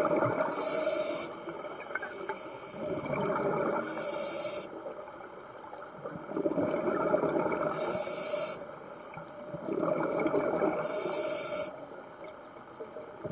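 Scuba diver breathing through a regulator underwater: four hissing inhalations about every three and a half seconds, each followed by a rush of bubbling exhaled air.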